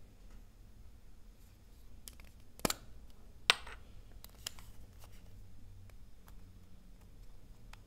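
Plastic lipstick tube being uncapped and handled: two sharp clicks about a second apart near the middle, the second louder, then a few light ticks as the tube is worked in the fingers.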